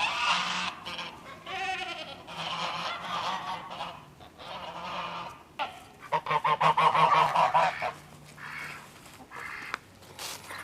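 American Buff geese honking in repeated bursts of calls with short gaps; the loudest, busiest run of honking comes a little past the middle.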